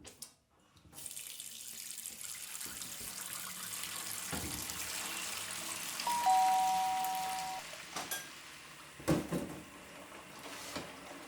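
Water running steadily, like a tap into a sink. About six seconds in, two steady tones, one higher and one lower, sound together for about a second and a half. A few knocks follow near the end.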